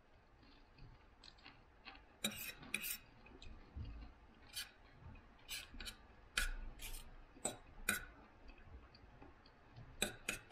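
Metal knife and fork clicking against a dinner plate while cutting and eating food: faint, sharp clicks at irregular intervals, starting about two seconds in.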